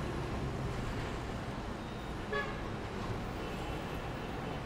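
Steady traffic noise with a short horn-like toot about two and a half seconds in.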